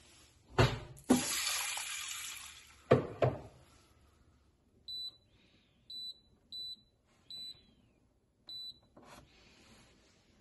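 Water poured into rice in a rice cooker's inner pot, with a few knocks of the pot, followed by a siroca rice cooker's touch panel giving five short high beeps as its buttons are pressed to set the rice-porridge course.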